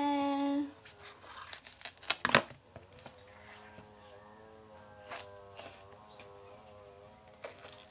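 Ripe bananas being handled, peeled and split by hand over a plastic bowl: a quick cluster of rustling, tearing strokes between about one and two and a half seconds in.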